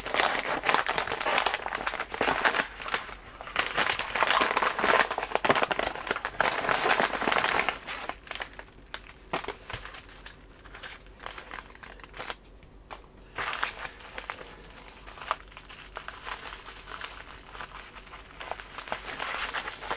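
Packaging crinkling as it is handled by hand: a paper wrapper rustling, then a pink bubble-wrap bag crackling as it is turned over and opened. The crinkling is dense for the first several seconds, thins to a few scattered crackles in the middle, and picks up again near the end.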